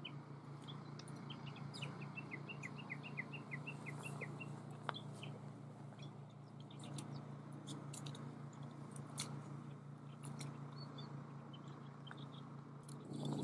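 Japanese bush warbler giving its tani-watari (valley-crossing) call: a fast, even run of short repeated notes for about four seconds, then scattered fainter chirps.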